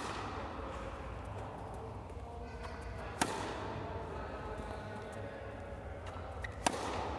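Tennis racket striking the ball twice, about three and a half seconds apart, each a sharp crack that rings on briefly in the indoor hall, over faint background music.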